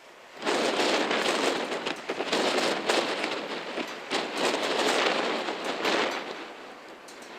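Hail pelting down: a dense crackle of many small hits that starts suddenly about half a second in and eases off near the end.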